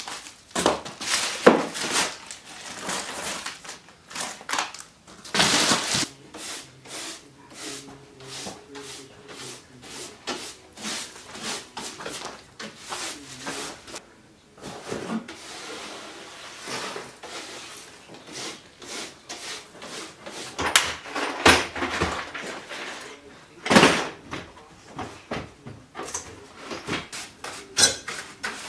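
Clattering and knocking of items being picked up, shifted and set down while a cluttered workshop is tidied, a steady run of small clunks and rattles with a few louder bangs, the loudest about five seconds in and near the end.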